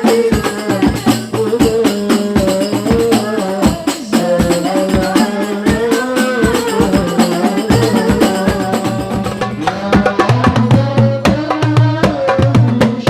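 Music with a fast, steady hand-drum and tambourine rhythm under a moving melody line.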